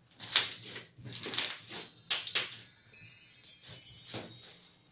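Tinkling, jingling chimes in a series of quick shimmers, with high ringing tones lingering through the second half.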